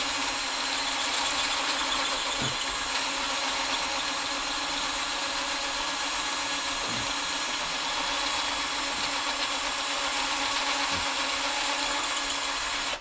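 Electric drill spinning a spring-loaded brake cylinder hone inside a 1940 Packard front wheel cylinder, polishing the bore. It runs steadily with a constant hum, then stops suddenly at the end.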